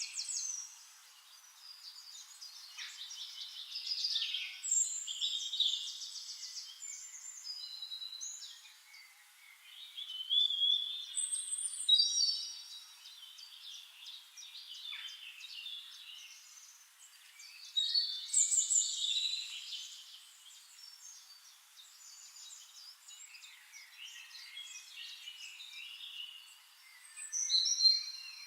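Several songbirds singing at once, a chorus of overlapping chirps, trills and whistled glides, with louder song phrases standing out every several seconds. The recording holds no low sound at all.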